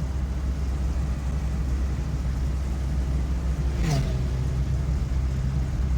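Volvo 940 Turbo's engine running steadily with a low drone. A short sound falls in pitch about four seconds in.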